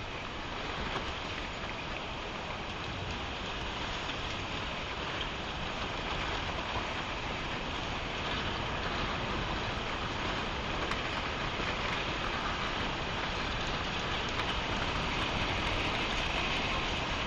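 Tsunami floodwater rushing through a town street, carrying cars with it: a steady, even rushing noise that grows slightly louder.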